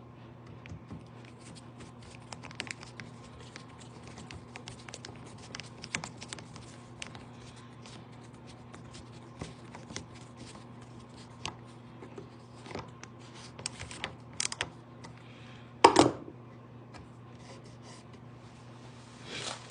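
Scattered light clicks, taps and scrapes of small handling work, with one louder knock about 16 seconds in, over a steady low electrical hum.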